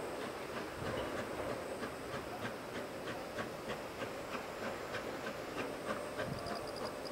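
QJ-class 2-10-2 steam locomotive working a loaded coal train slowly, heard from a distance: a low rumble with a steady run of short beats, about three a second. Faint high chirping, like an insect, comes in near the end.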